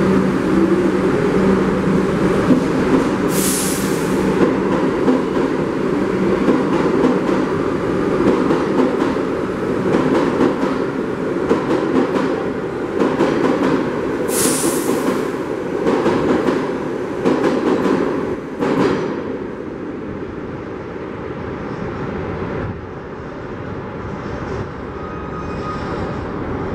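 R62A subway train pulling out of the station and running out along the platform: a dense rumble of wheels and motors. Two short high hisses come through it, about three seconds in and again about fourteen seconds in. The rumble fades after about nineteen seconds as the train draws away.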